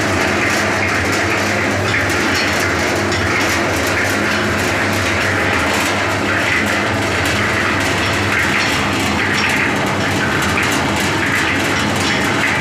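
Half-bag concrete mixer running steadily: a constant motor hum with a continuous clattering rattle from the turning drum.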